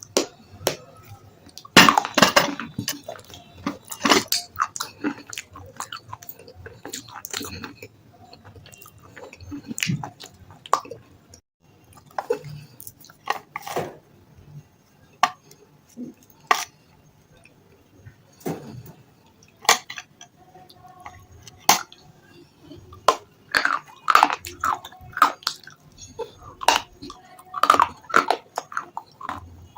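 Close-up biting and chewing of something hard and crunchy: irregular sharp cracks and crunches, denser in bursts around two seconds in and again near the end, with quieter chewing between.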